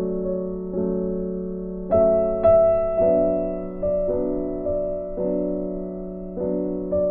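Background music: slow piano chords, each struck and left to fade, a new one about every second.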